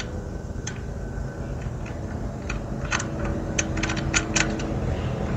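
Scattered small metallic clicks and ticks, with a quick cluster of them past the middle, as a lock washer and axle nut are fitted by hand onto an electric bike's front wheel axle, over a steady low background hum.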